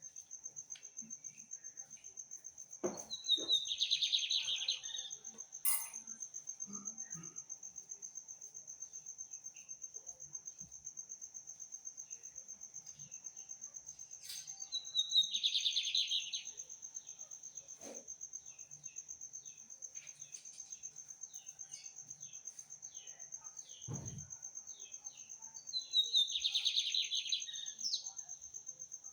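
Seedeater singing three song phrases, each a few quick falling notes running into a dense buzzy trill, about ten seconds apart. An insect keeps up a steady high-pitched trill throughout, and there is a low thump near the end.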